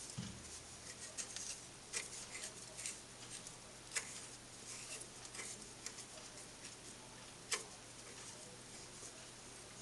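Light metallic clicks and taps of a steel Allen key turning a socket-head bolt in a cast-iron lathe bed, the key clinking against the bolt and bed as it is worked round and repositioned. The sharpest clicks come about two, four and seven and a half seconds in.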